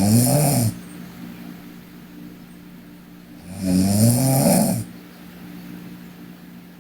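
A sleeping girl snoring: the end of one snore at the start, then one full snore about three and a half seconds in, each lasting about a second and rising in pitch.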